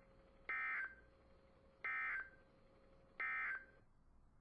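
Three short, buzzy bursts of EAS/SAME digital data tones from a NOAA Weather Radio broadcast, evenly spaced about a second and a half apart. They are the end-of-message signal that closes the weekly test.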